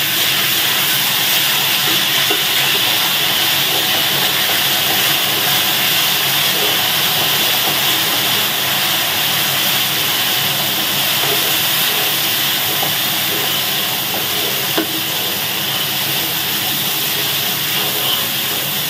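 Pounded shallots, garlic, ginger and chili sizzling steadily in hot oil in an aluminium wok as they are fried until crisp. A wooden spatula stirs them, with an occasional light scrape against the pan.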